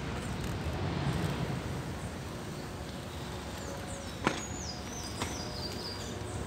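Bicycle rolling along an asphalt street, with steady wind and road rumble. Two sharp knocks come about four and five seconds in, and a string of high chirps falls in steps near the end.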